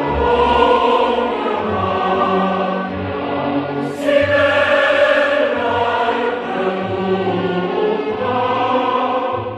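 Choral music: voices singing slow, held chords over a low bass line, with a sudden louder entry about four seconds in.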